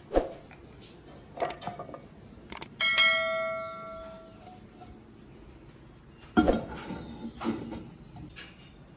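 A subscribe-button sound effect: a click, then a bright bell ding that rings out and fades over about a second and a half. Around it come a few separate knocks and clatters of kitchenware being handled, the loudest a clunk near the end.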